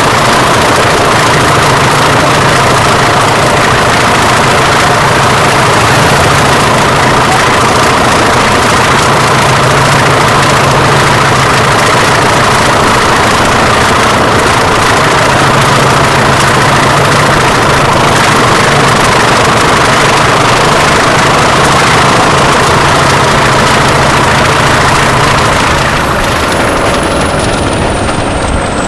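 A pair of Class 20 diesel locomotives running loud and steady, their turbocharged English Electric V8 engines under power, with a high thin whistle over the top. Near the end the engine sound drops and the whistle falls in pitch as the locomotives ease off.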